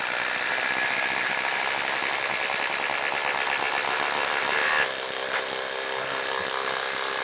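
Two cordless impact drivers, a DeWalt DCF850 and a Bosch Freak GDX18V-1800, hammering together at full speed as they drive 3/8-inch by 5-inch lag screws into wood. About five seconds in the DeWalt finishes and stops, and the Bosch keeps hammering alone, a little quieter.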